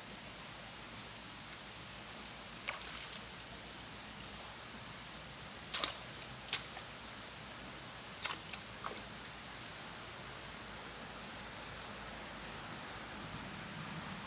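Quiet wetland ambience with a steady high-pitched insect drone, broken by a handful of short sharp clicks.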